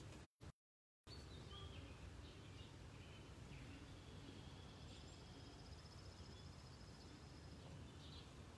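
Faint outdoor ambience: a low steady background hum with small birds chirping, including one trilling call in the middle. The audio cuts out completely for under a second near the start.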